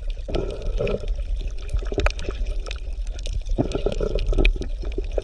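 Bubbling, gurgling water with an irregular patter of small pops and splashes.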